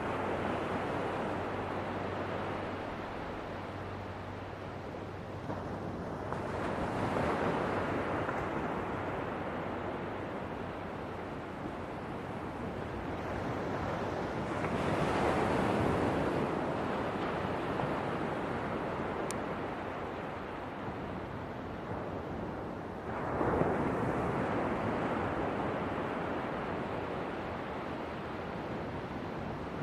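Ocean waves washing ashore, with a louder wave surging in about every eight seconds over a steady rushing background.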